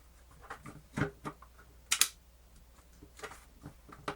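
Irregular plastic clicks and knocks from a portable cassette player's case and switches being handled and pressed together during reassembly, with the loudest knocks about one and two seconds in.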